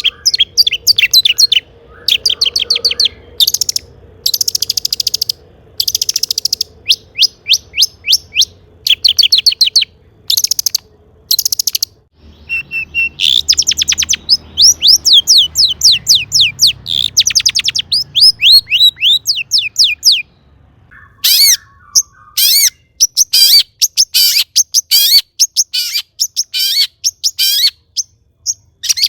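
Long-tailed shrike singing a loud, rapid song of quick sweeping notes, delivered in bursts of several notes a second with short pauses between phrases.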